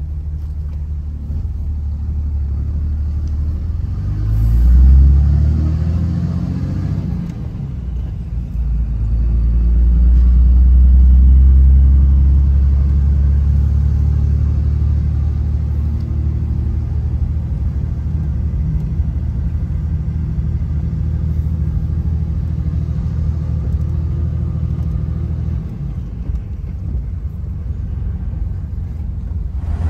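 Cummins inline-six turbo diesel in a Dodge Ram 2500, heard from inside the cab, pulling away. Its revs climb about four seconds in, drop back, then climb again to the loudest point around eleven seconds as it goes up through the gears of the manual box. It then settles to a steady cruise.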